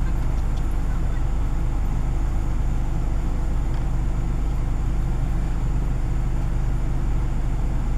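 Steady low rumble of a motor vehicle's engine and road noise, even throughout.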